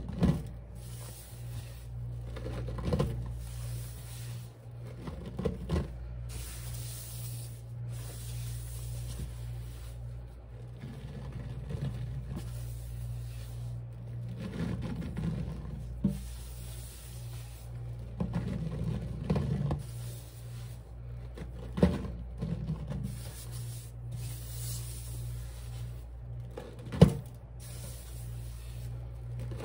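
Cleaning powder being worked with a sponge by hand: soft rubbing and squishing with scattered sharp taps, the loudest near the end, over a steady low hum.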